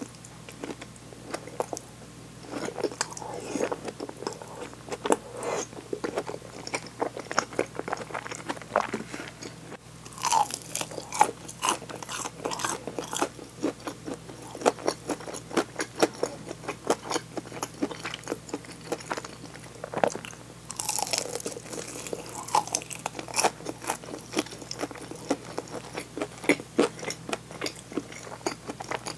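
Close-miked eating: steady chewing and mouth clicks, with crunchy bites into fried chicken wing drumettes. The loudest, crispest crunches come about ten seconds in and again about twenty seconds in.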